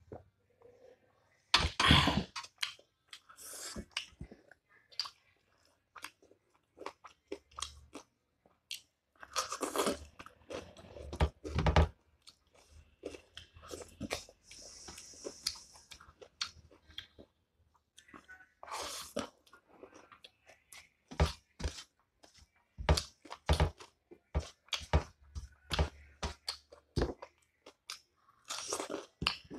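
A person chewing and crunching mouthfuls of food close to the microphone, with many short mouth clicks and smacks coming in clusters.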